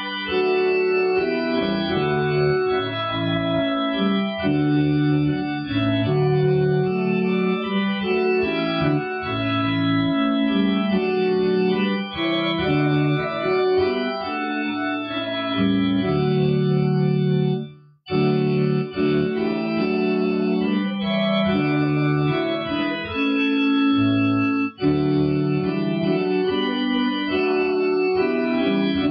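Organ playing a hymn in held chords that change every second or so, with a brief break about 18 seconds in.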